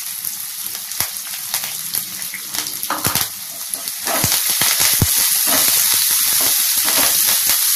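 Chopped onion and curry leaves frying in a hot oil tempering in a kadai, sizzling steadily, with a spoon stirring and scraping the pan. The sizzle grows louder about four seconds in.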